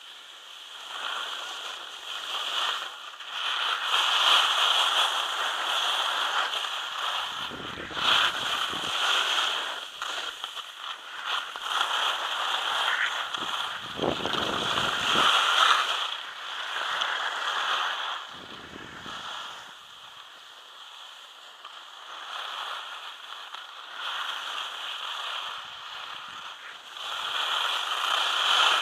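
Skis scraping and hissing over snow during a downhill run, the hiss rising and falling as the skier turns. A few short low rushes of wind over the microphone break in along the way.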